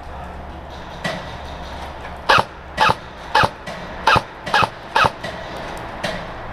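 Airsoft gun firing six single shots in quick succession, about half a second apart, each a short sharp pop.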